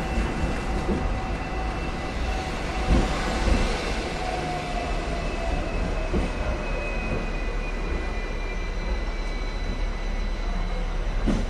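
Hong Kong double-decker electric tram running along its street rails, heard from on board: a steady rumble with a few knocks from the wheels on the track, and a thin high tone that slowly falls in pitch.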